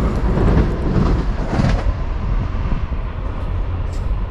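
Suburban passenger train pulling away from the platform, its rumble loudest at first and easing off as the train draws away down the line.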